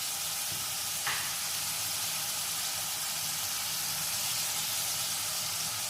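Chicken pieces sizzling steadily in hot oil in a frying pan, an even hiss with a faint tick about a second in.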